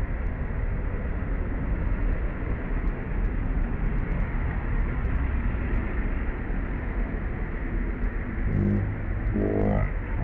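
Steady low rumbling background noise. From about eight and a half seconds in, a few short, low-pitched animal calls rise and fall over it.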